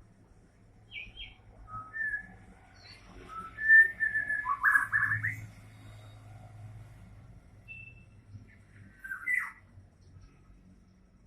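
White-rumped shama singing: short whistled notes and phrases, some sliding in pitch, with its loudest part a quick run of rapid notes about four to five seconds in and another short falling phrase near the end.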